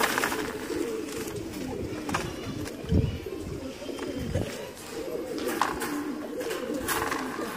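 Domestic pigeons cooing steadily in a low warble, with a few clicks and knocks of the birds being handled at a wire cage, one louder thud about three seconds in.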